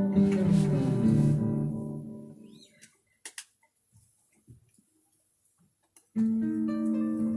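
Guitar playing a phrase that steps down in pitch and dies away about two seconds in. A few small clicks fall in the pause, then the guitar starts again with sustained notes about six seconds in.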